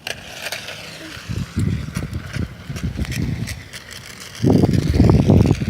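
Toy remote-control motorcycle's small electric motor whining faintly as it drives, with low rumbling on the microphone that is loudest about four and a half seconds in.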